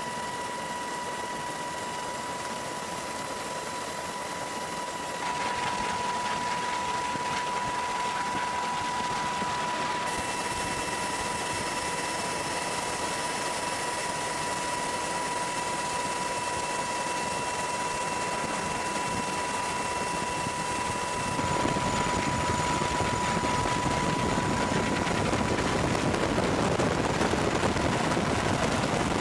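Jet fighter engine noise: a steady rushing roar with a thin high whine. It grows louder and deeper about three-quarters of the way through.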